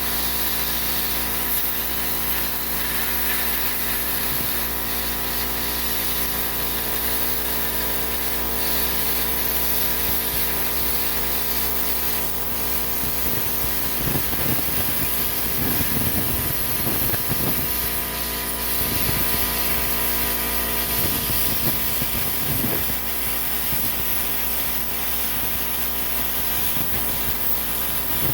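Plasma cutter running: a steady loud hiss of air and arc over a constant machine hum, roughening in patches about halfway through and again a little later.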